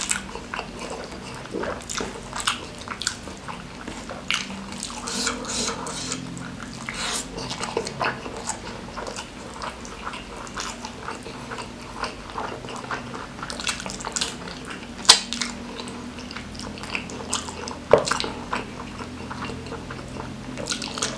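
Close-miked mukbang eating sounds: wet chewing and lip smacking of a person eating rice, curry and noodles by hand, full of small sharp clicks, with two louder clicks late on.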